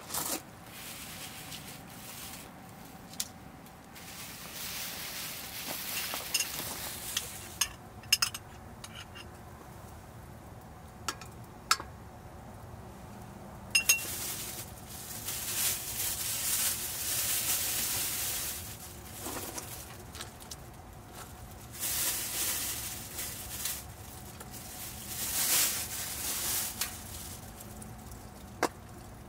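Cooking at a cast-iron pot on a wood stove: water hisses in several long stretches as it goes into the pot, with sharp clinks and knocks of utensils and pieces dropped in between.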